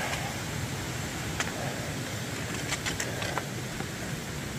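Hiker's footsteps over a root-covered forest trail, with a few faint sharp clicks, over a steady rushing background noise.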